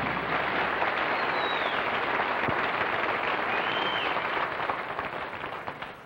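Studio audience applauding, with two brief high whistles over the clapping; the applause dies away near the end.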